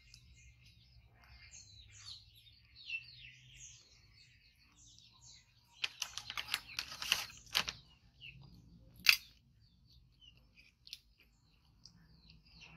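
Metal spoons clicking and scraping in stainless steel bowls: a quick run of sharp clicks about six to eight seconds in and one loud single click a little after nine seconds. Short high chirping calls come and go throughout.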